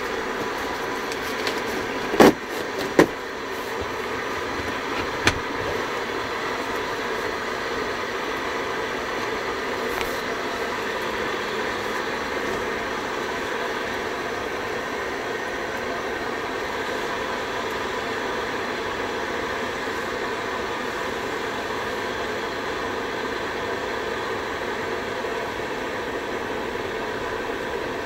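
Electric kettle heating water to the boil: a steady rushing noise. A few sharp clicks sound about two, three and five seconds in.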